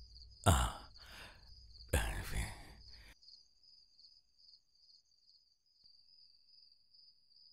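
Crickets chirping steadily in a high, evenly pulsing trill through the night. Two short, louder bursts of noise, like rustles or breaths, come in the first three seconds.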